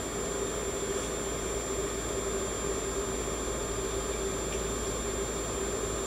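Ozone generator running with a steady hum and hiss.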